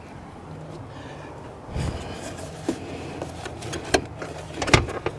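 A few scattered knocks and clicks of a part being handled and pushed into place in a ute's engine bay, over a low steady background hum.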